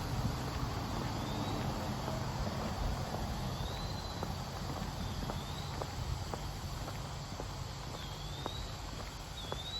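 Footsteps on a trail over a steady low rumble, with a bird giving short wavy whistles every second or two.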